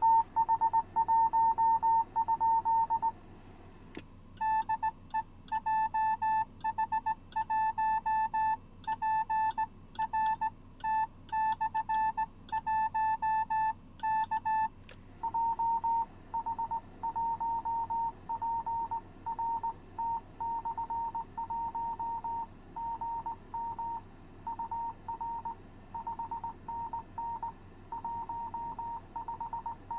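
Morse code (CW) tones from the Icom IC-7100 transceiver's speaker: a single beep-like tone keyed on and off in dots and dashes. The tone is buzzy from about four seconds in. After about fifteen seconds a cleaner, slightly higher-pitched stretch of Morse follows.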